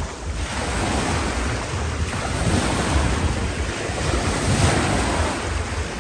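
Sea waves washing in and breaking at the shore, in swells that rise and fall, with wind buffeting the microphone as a low rumble.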